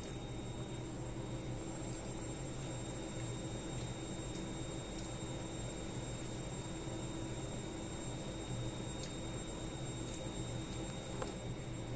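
A steady low hum with hiss, broken only by a few faint, soft clicks.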